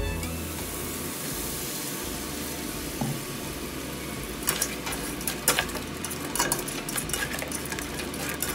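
Crab and pork pieces sizzling in a frying pan, a steady hiss. From about halfway through, a utensil clicks and scrapes against the pan as the food is stirred.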